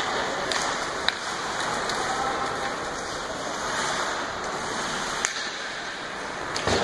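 Ice hockey game heard from the stands of an indoor rink: a steady wash of arena and skating noise, with two sharp clacks about a second in and about five seconds in, and a thud near the end.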